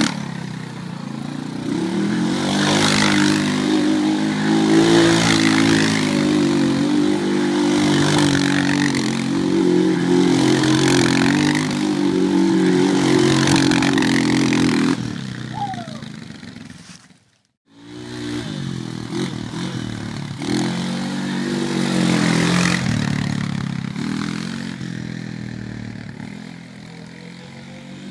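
Honda Recon ATV's single-cylinder engine revving up and down in repeated bursts as the quad slides around on grass. The sound drops out briefly a little past halfway, then the revving returns and grows fainter near the end as the ATV moves away.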